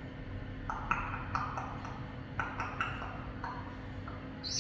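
A parrot making a quick run of sharp clicks, about a dozen, then a short high whistle that falls in pitch near the end.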